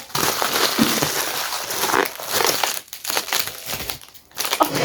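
Packaging crinkling as items are handled and rummaged through, in uneven stretches with brief pauses.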